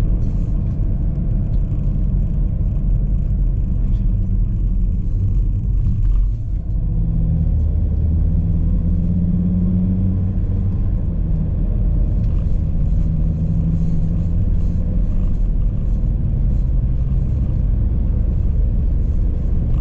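Volvo XC90 on the move: a steady low rumble of engine and tyre noise, with a brief dip about six seconds in.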